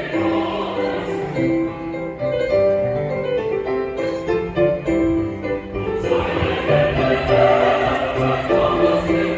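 Music with a choir singing sustained chords in a classical, operatic style.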